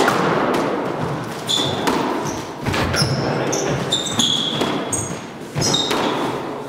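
Squash rally: a series of sharp knocks as the ball is struck by rackets and hits the court walls, with short high squeaks of shoes on the hardwood floor.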